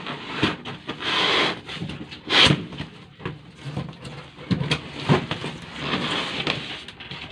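Irregular rubbing, scraping and rustling of packing and parts being handled during an unboxing, with a louder scrape about two and a half seconds in and a few short knocks later on.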